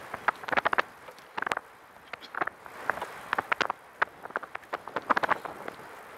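A Catrike 700 recumbent trike rattling and clicking irregularly in short bursts as it rolls over cracked asphalt, over a low steady rolling noise.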